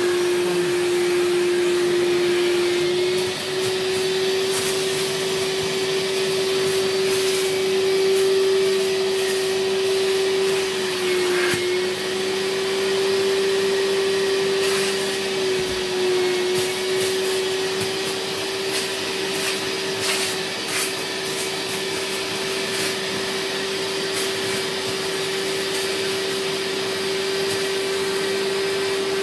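Vacuum motor of a spray-extraction cleaning machine running steadily, its upholstery hand tool sucking across a mattress. It makes a constant whine that sags briefly in pitch a few times, over a hiss of rushing air.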